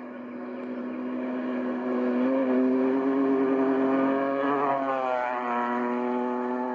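Off-road race truck engine approaching and passing: the engine note builds to its loudest about two to four seconds in, then drops in pitch about five seconds in as it goes by.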